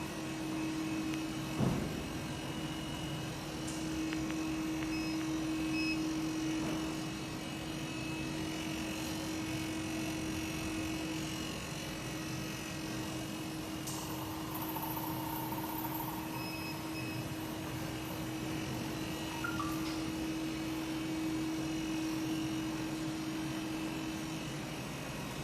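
Steady hum of running machinery with one constant low tone, typical of test equipment in operation. There is a single knock about a second and a half in, and a brief high hiss about fourteen seconds in.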